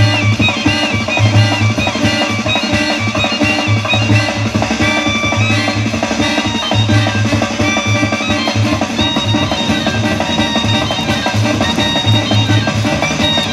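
Background music with drums and a repeating bass pulse.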